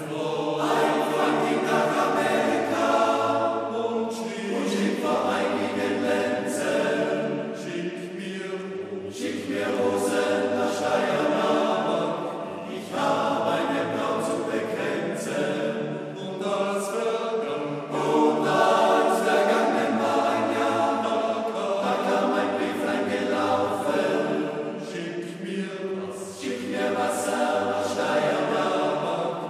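Male-voice choir singing a cappella in harmony, sustained chords in phrases of a few seconds with brief breaks for breath between them.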